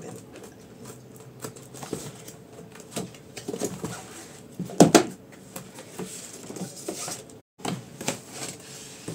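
Cardboard speaker box being opened by hand: the lid flap is lifted and a paper insert pulled out, giving scattered rustling, scraping and clicking of cardboard and paper, with a sharp knock about five seconds in.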